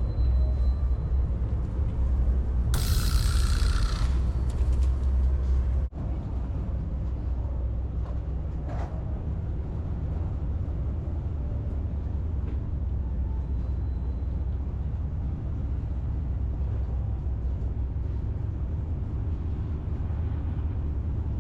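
Steady low engine rumble heard from aboard a moving vehicle, with a short hiss about three seconds in. An abrupt cut about six seconds in leads to a similar, slightly quieter rumble.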